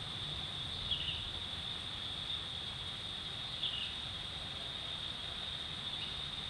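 Steady, high-pitched drone of insects, with two short downward chirps, about a second in and a few seconds later, over a low outdoor rumble.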